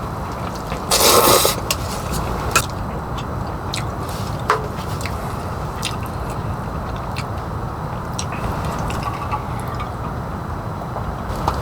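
Steady rain falling, with individual drops ticking sharply here and there. A brief louder rustle comes about a second in.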